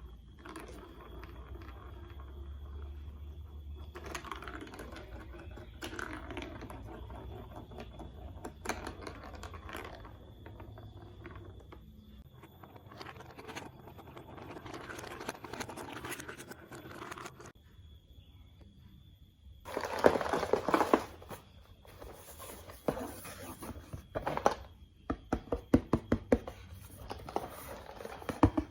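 Plastic marble-run building blocks being handled, with scraping and rustling through most of it. A louder burst comes about two-thirds of the way in, then a quick run of sharp plastic clicks near the end.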